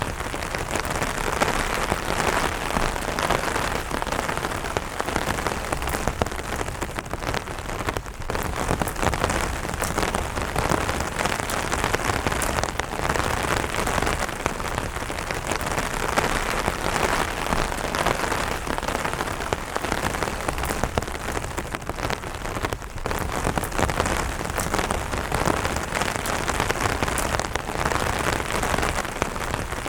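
Light rain pattering on an umbrella canopy: a steady, dense patter of drops.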